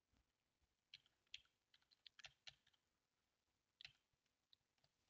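Faint computer keyboard typing: scattered key clicks in two short clusters, about a second in and again near four seconds.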